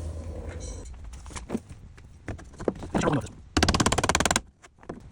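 A power tool rattles in one rapid burst, under a second long, about three and a half seconds in, while a threaded insert is fitted into a worn screw hole in the van door's sheet metal. Scattered knocks and handling clatter come before it.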